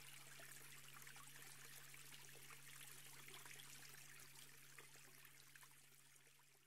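Faint trickling stream, fading out near the end, over a steady low hum.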